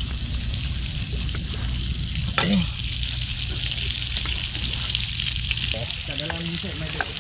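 Butter sizzling steadily as it melts in a hot frying pan on a portable gas stove.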